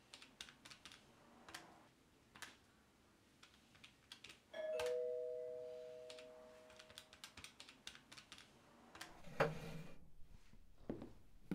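Desk calculator keys tapped in a run of quick clicks, then a two-tone doorbell chime about four and a half seconds in, a higher note followed by a lower one, both fading over a couple of seconds. A few more clicks and soft thumps near the end.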